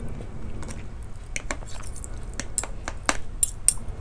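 Metal spoon and fork clinking and scraping against a plate while picking at fish, a run of sharp clicks that grows busier in the second half, loudest near the end.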